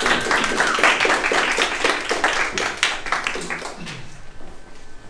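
A small group applauding, with a few voices over the clapping; the applause dies away about four seconds in.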